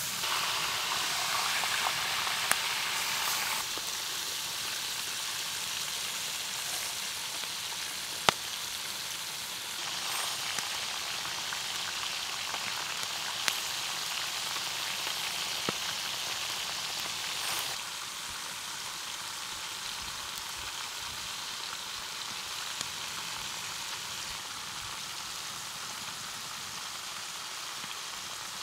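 Beef ribs frying in a large pot, a steady sizzling hiss with a few sharp pops. It is loudest in the first few seconds and settles lower after about 18 seconds.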